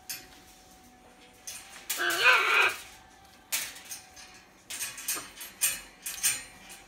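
Rubygold macaw giving one short call with a wavering pitch about two seconds in, followed by several brief scratchy noises.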